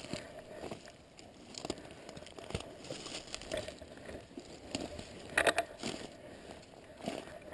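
Footsteps crunching and crackling through dry bracken and leaf litter, with irregular snaps of twigs and fronds; the sharpest cluster of snaps comes a little over halfway through.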